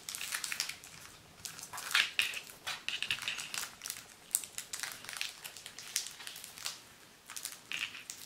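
Clear cellophane film (crystal paper) crinkling as it is folded and pressed around a card in its envelope, in irregular crackles, loudest about two seconds in.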